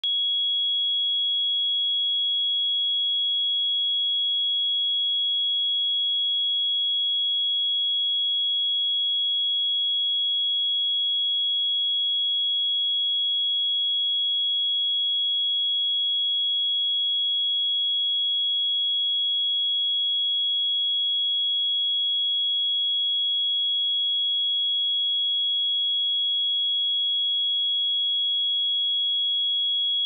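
A pure 3332 Hz sine-wave test tone, a single steady high-pitched tone with no change in pitch or level.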